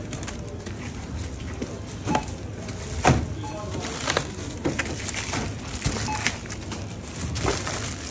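Groceries handled and set down on a metal supermarket checkout counter: several knocks and the crinkle of plastic packaging, the loudest knock about three seconds in, with a short checkout beep about six seconds in, over background store chatter and music.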